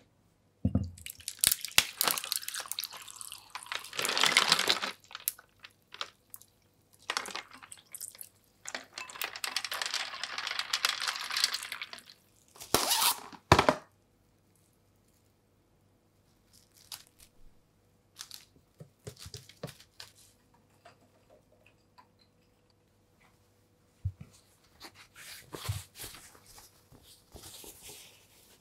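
Ice cubes crunching and clinking in a stainless steel tray as glass pudding cups are pressed in and water is poured over the ice, in two long stretches with a couple of sharper knocks after them. Soft handling sounds follow near the end.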